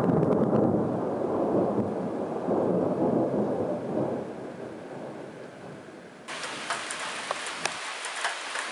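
Thunder rumbling, swelling again about two and a half seconds in, then fading. About six seconds in the sound changes abruptly to rain pattering, with sharp clicks of drops striking close by.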